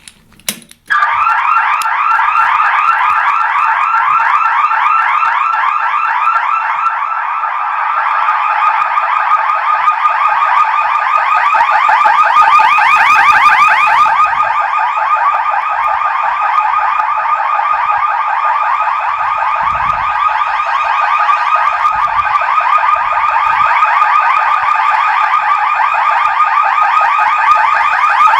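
Red fire alarm horns of a 1990s Pertronic F16 conventional fire alarm system sounding the evacuation alarm: after a couple of short clicks, a loud, fast-pulsing tone starts about a second in and keeps going steadily. It is the older, non-standard tone these systems used before the 2003 standard.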